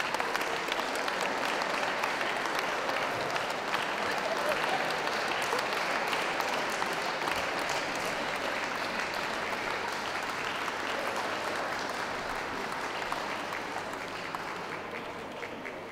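Ringside audience applauding steadily, the clapping slowly dying down toward the end.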